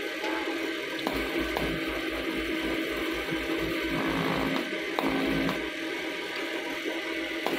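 TIG welding arc buzzing steadily as steel knife blanks are tack-welded together, with a few sharp clicks.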